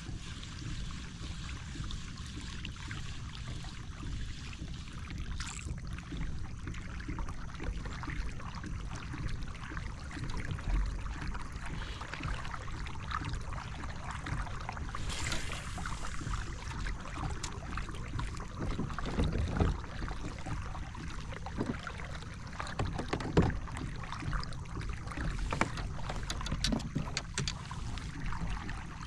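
Water lapping against the hull of a fishing kayak, with a steady wind rumble on the microphone and scattered small clicks and knocks of gear on the boat, busier near the end.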